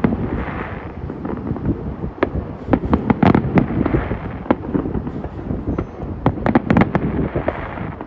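Aerial fireworks bursting in quick, irregular succession: sharp bangs and pops over a steady low rumble, thickest about three seconds in and again around six to seven seconds.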